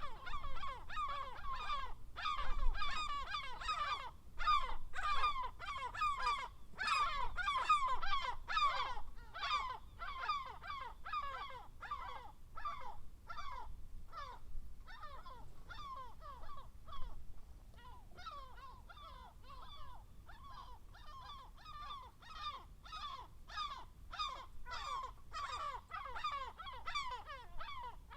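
Seagulls calling: many short squawks that slide downward in pitch, overlapping one another without a break, busiest and loudest in the first nine seconds or so and thinner after.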